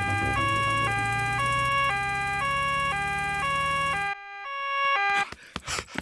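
Cartoon two-tone "nee-naw" emergency siren on the doctor's car, alternating a high and a low note about every half second over a low engine hum. The hum cuts off about four seconds in, the siren grows louder and stops a second later as the car arrives.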